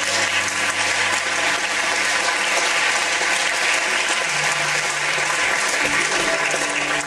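Audience applauding steadily, with the show's music playing quietly underneath.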